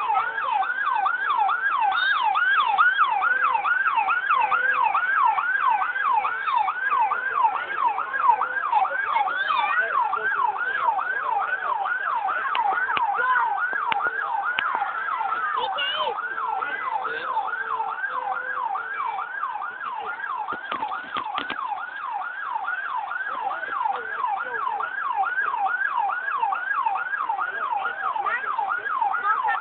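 Siren sounding in a fast yelp, its pitch sweeping up and down about three times a second without a break.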